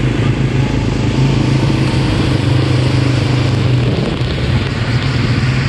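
ATV engine running steadily while riding along a road, with a haze of road and wind noise.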